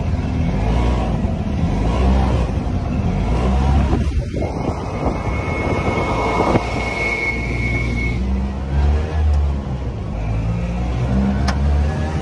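Tuk-tuk (auto-rickshaw) engine running under way, heard from the passenger seat. Its note rises and falls as it speeds up and eases off, over road and wind noise, with a thin high whine for a few seconds in the middle.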